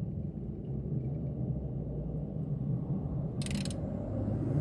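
Car engine running with a steady low rumble and no knock or contact noise from the refitted motor mount bolt. There is a short hiss about three and a half seconds in.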